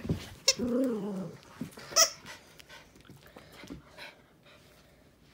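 Dog playing tug of war over a plush toy: a short falling cry about a second in and a sharp yip at about two seconds, with a knock at the start.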